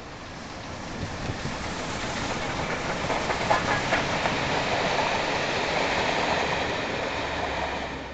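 Pair of LMS Stanier Black Five 4-6-0 steam locomotives and a coach passing close by on the main line. A rumble builds to a peak in the middle, with a short run of wheel clicks about three and a half seconds in, then fades as the train moves away.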